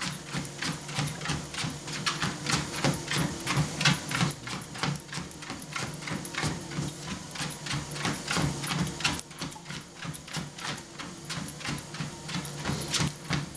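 A Rhodesian ridgeback's paws striking a running ProForm treadmill belt in a quick, even jogging rhythm, over the steady hum of the treadmill's motor.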